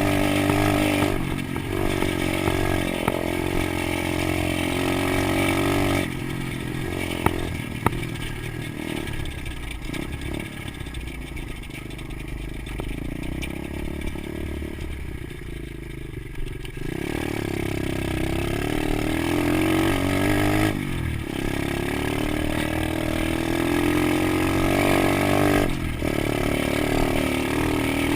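110cc Stomp pit bike's single-cylinder four-stroke engine running under throttle as it is ridden, its pitch rising and falling with the throttle. The engine grows fainter about six seconds in and louder again from about seventeen seconds.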